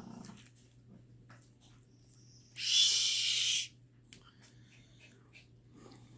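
A person shushing: one long "shh" hiss of about a second, starting a little over two and a half seconds in, with faint clicks around it.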